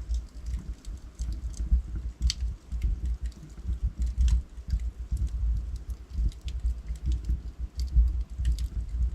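Wood fire crackling: burning logs giving off irregular sharp snaps and pops over a low, steady rumble of flame.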